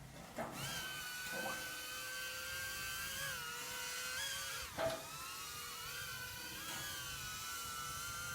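Small quadcopter drone's motors and propellers spinning up about half a second in and then whining steadily in flight, the pitch wavering up and down as the throttle changes. A short knock near the middle.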